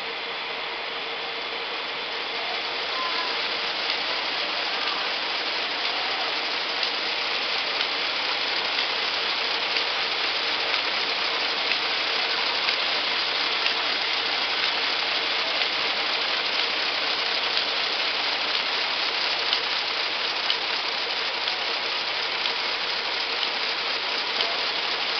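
Round drawcord braiding machine running: its bobbin carriers and gears clatter steadily with a dense stream of small clicks, the noise getting louder about two to three seconds in as the machine comes up to speed.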